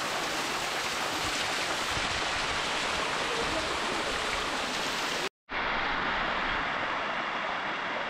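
Water of a waterfall rushing steadily as it cascades over the rocks, close to the microphone. The sound drops out for a moment a little after five seconds in, then the rushing resumes.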